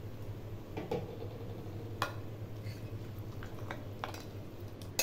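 Metal spoon stirring boondi into thin curd in a glass bowl, with a few sharp clinks of the spoon against the glass, the clearest about two seconds in, over a low steady hum.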